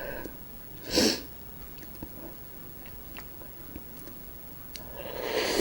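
Close-miked eating sounds of raw oyster: faint wet chewing clicks, a short hissing slurp about a second in, and a louder slurp building near the end.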